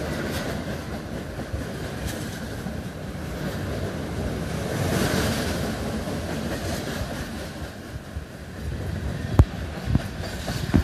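CSX mixed freight train's cars rolling past close by: a steady rumble of steel wheels on the rails, with two sharp knocks near the end.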